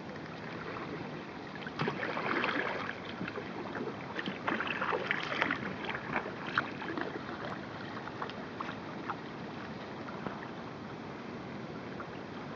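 Kayak paddle blades dipping and splashing in the water, with a run of irregular splashes in the first half that thin out into a steady wash of moving water.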